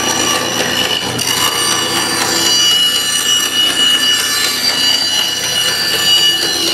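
Homemade band saw with a narrow blade running in hardened steel blade guides, cutting a curve through a board. The cut sounds steady, with a high whine over the noise of the cut.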